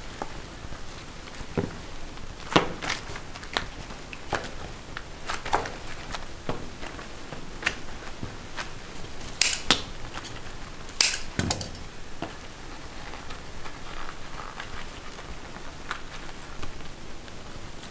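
Irregular sharp clicks and knocks from hands-on work with hard candy, with two louder clattering knocks about nine and eleven seconds in.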